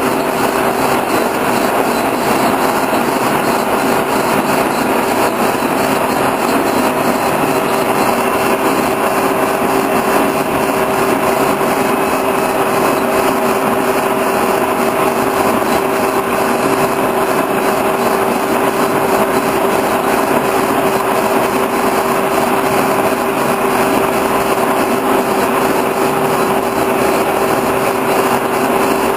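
Horizontal boring mill running steadily while turning a steel shaft, its drive giving a constant whine over a broad machining noise.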